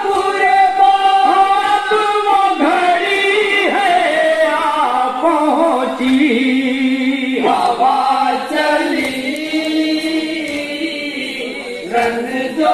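A group of men singing a noha, a Muharram lament, together with long held, drawn-out notes.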